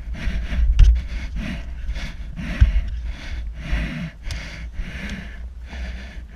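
Fast, heavy panting of a person out of breath after a parkour run, close to a body-worn GoPro, about two breaths a second, over a steady low wind rumble on the microphone. Just after four seconds in, a single sharp slap of a high five.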